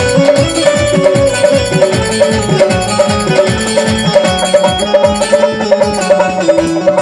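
Instrumental interlude of a devotional bhajan: an Indian banjo (bulbul tarang) picks a fast melody of quick repeated notes over electronic keyboard and a steady drum beat.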